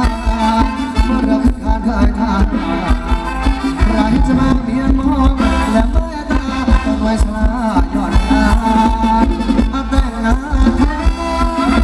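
Live band playing upbeat Thai ramwong dance music with a steady drum beat.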